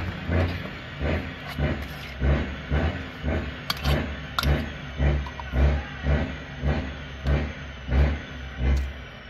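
A fork mixing a thick mayonnaise mixture in a stainless-steel bowl, in a steady beat of about two strokes a second. Each stroke gives a dull thud and a squelchy scrape, with an occasional sharp click of metal on metal.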